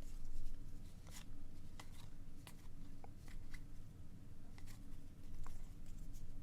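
Cardboard baseball cards being flipped through by hand: about a dozen short, irregular clicks and slides as each card is pushed from the front of the stack to the back.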